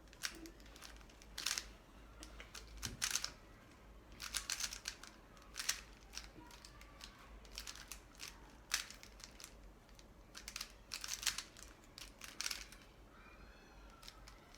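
Rubik's Cube being turned fast during a speedsolve: quick clusters of light plastic clicks and clacks as the layers are twisted, with short pauses between bursts.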